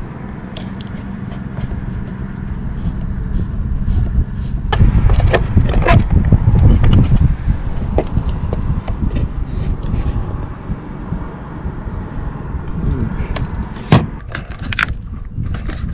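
Clicks, knocks and scrapes of the plastic housing of an old solar deck vent fan being lifted off its base ring, over a low rumble of wind on the microphone that is heaviest from about four to eight seconds in.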